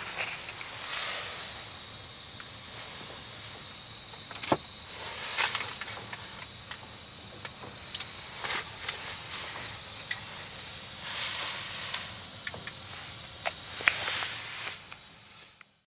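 Portable propane heater hissing steadily, with a thin high whine over the hiss and a few light clicks and knocks. The sound fades out just before the end.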